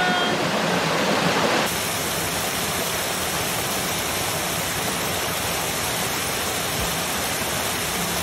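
Waterfall rushing steadily, a continuous loud wash of falling water. Under two seconds in, the sound changes abruptly, as at a cut, and then runs on evenly.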